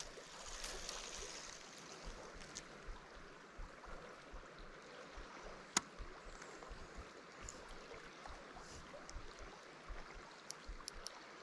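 Faint steady rush of a river flowing, with a few light clicks, one sharper about six seconds in.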